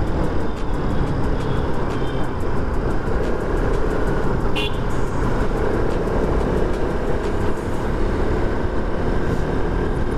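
A motorcycle running steadily along a busy city road, with engine, road and traffic noise. A short high chirp sounds about halfway through.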